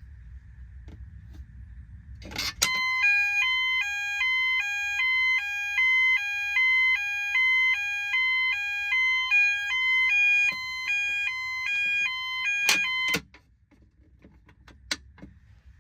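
Electronic fire alarm sounding a two-tone hi-lo signal, switching between a higher and a lower pitch about twice a second for about ten seconds. It starts with a click and stops abruptly with clicks.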